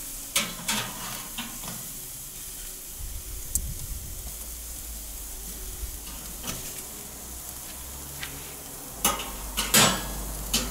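Rump steaks sizzling faintly on a charcoal grill while metal tongs turn them, with sharp clicks of the tongs against the steel grate: a couple just after the start and the loudest two near the end.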